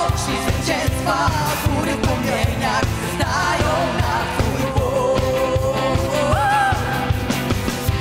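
Live worship band playing a Polish-language worship song: women's voices sing the melody together over keyboard, electric guitar and a steady beat. A single held sung note stands out about five to six seconds in.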